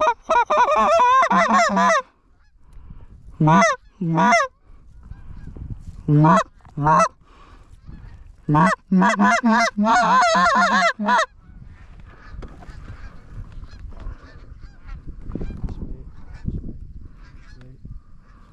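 Canada goose honking and rapid clucking in several loud bursts, the longest ending about eleven seconds in, followed by faint low rustling.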